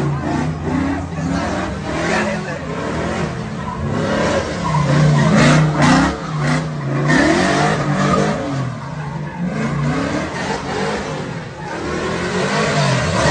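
Pickup truck's engine revving up and down repeatedly, loudest about five to six seconds in, with its tyres spinning and skidding on wet pavement.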